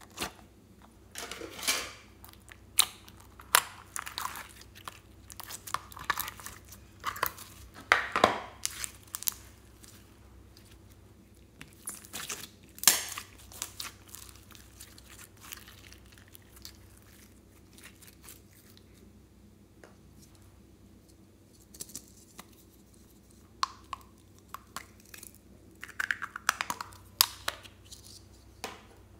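Sticky slime being peeled from a plastic mold and stretched and squeezed by hand: wet crackling and popping squelches in irregular bursts, with quieter gaps between.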